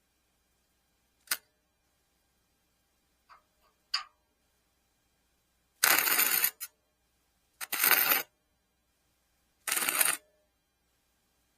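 Three short bursts of electric arc welding, each under a second of loud crackling and sizzling, tacking a small piece onto thin steel, after a sharp click and a few lighter clicks of handling.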